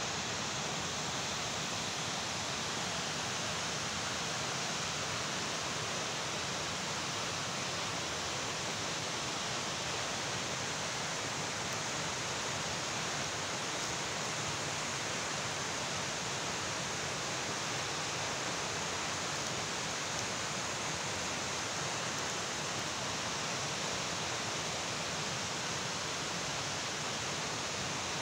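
Steady, even rushing noise that does not change, with no distinct sounds in it.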